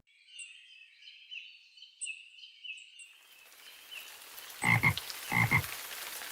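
Frog croaking sound effect: short repeated chirping croaks for about three seconds. A steady rain-like hiss then sets in, with two short double knocks near the end.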